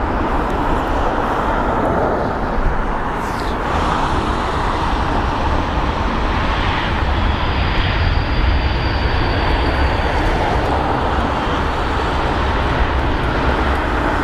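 Airbus A380's jet engines running with a loud, steady rush and deep rumble as the airliner rolls out on the runway after landing, with wind buffeting the microphone.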